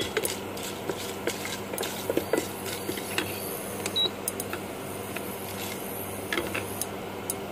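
Oil sizzling steadily in a steel pressure cooker as mustard seeds and dals fry, with scattered small pops and clicks and a wooden spatula stirring against the pot.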